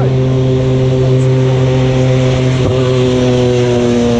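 Race car engine running at a steady pitch, its note dipping slightly near the end.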